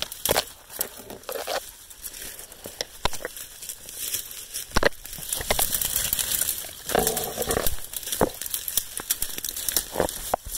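Footsteps crunching through dry fallen leaves and brush, with branches scraping past and twigs snapping in irregular crackles.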